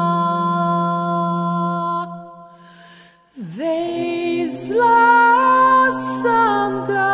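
A woman's voice holds one long sung note that stops about two seconds in. After a short pause, a serpent enters with a low held note, and a voice sings a slow, wavering melody above it.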